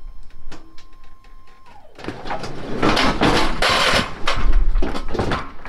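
A heavy wooden shipping crate scraping and grinding as it is slid and tipped off a truck bed onto the metal liftgate, with knocks of wood against metal. A steady high hum before it drops away about two seconds in.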